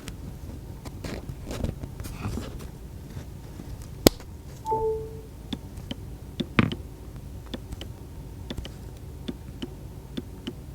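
Handling and tapping of a phone: scattered light clicks and taps, a sharp click about four seconds in and a louder thump a couple of seconds later. Just before the halfway point a short chime plays once from the phone's speaker, a single note with its octave.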